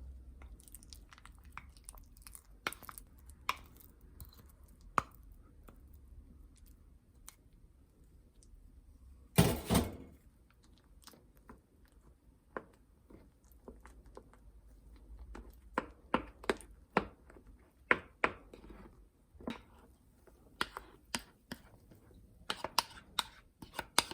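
Kitchen prep sounds: irregular clicks and taps of utensils and dishes being handled, with a louder clatter about nine and a half seconds in.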